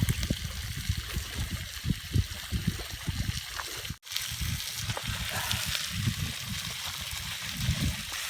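Surf washing on the shore with wind buffeting the microphone in low, irregular gusts, broken by a brief gap about four seconds in.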